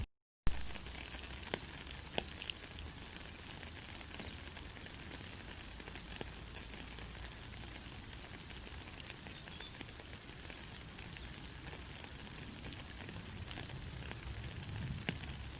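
Steady white-noise hiss with faint scattered crackles. Right at the start it drops out to silence for about half a second and comes back with a sharp click, like a loop seam.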